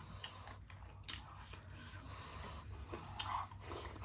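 A person chewing food close to the microphone, with several short, sharp crunches.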